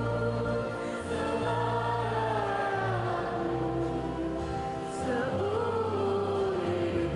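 Music with choir-like singing: long held notes that glide in pitch over a sustained low bass.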